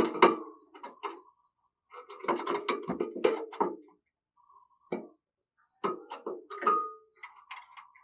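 A spotted dove moving about in its wire cage: irregular clusters of knocks and scrapes from its claws and wings on the perch, wire and feed cups.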